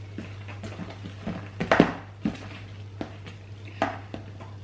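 Spoons knocking and scraping against mixing bowls as runny slime is stirred: a few irregular clacks, the loudest about two seconds in, over a steady low hum.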